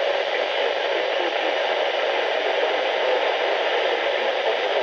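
Radio static: a steady hiss from a radio receiver as the spoken weather-warning broadcast drops out under the noise.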